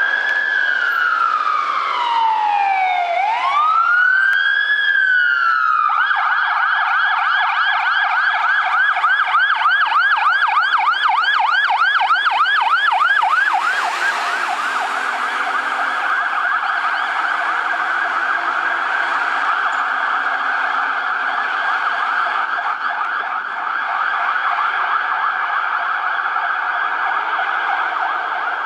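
Fire engine siren sounding on an emergency run: a slow rising and falling wail for about the first six seconds, then a fast yelp. About fourteen seconds in, the truck passes close by with a rush of road noise, and the siren changes to an even quicker warble.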